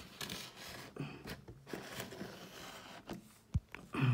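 Soft handling noise of rustling and scraping, with a sharp knock about three and a half seconds in.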